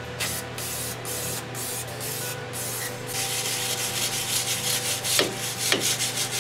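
An aerosol can of brake parts cleaner hissing in several short spurts, then a wire brush scrubbing metal in quick repeated strokes from about three seconds in.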